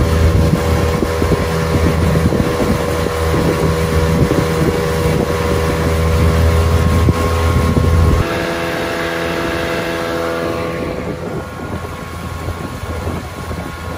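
Outboard motor running under way on a small aluminium boat. About eight seconds in it is throttled back: the engine note drops and then fades as the boat slows.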